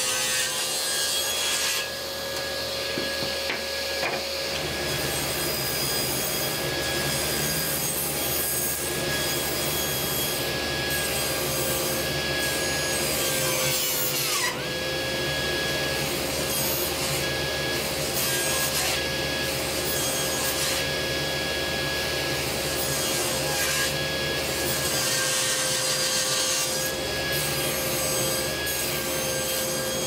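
Table saw running and ripping spalted maple into strips: a steady motor and blade whine under the hiss of the cut. About 14 seconds in, the pitch dips briefly as the blade comes under load.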